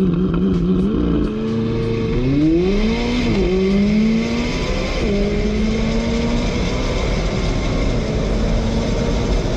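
McLaren 600LT's twin-turbo V8 held at high revs at a standstill, its note wavering. About two seconds in it launches hard, the note climbing steeply and dropping back at each quick upshift as the car pulls through the gears, heard from inside the cabin.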